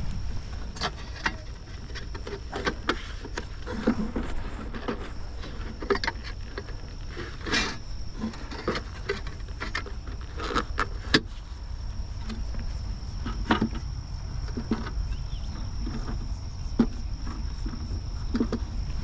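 Wooden beehive boxes and frames being handled: scattered knocks, clicks and scrapes, a few louder, over a steady low rumble.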